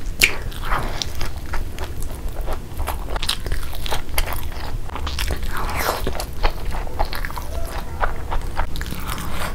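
Close-miked biting and chewing of fried sunny-side-up eggs: crunches and crackles from the crisp fried edges mixed with wet mouth sounds, over a steady low hum.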